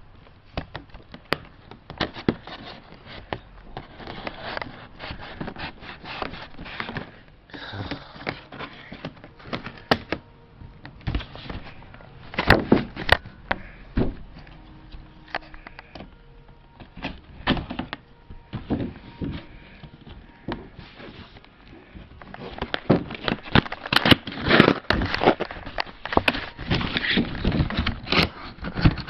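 Toy packaging being handled and opened by hand: cardboard and plastic rustling, crackling and knocking in irregular bursts, busiest and loudest near the end.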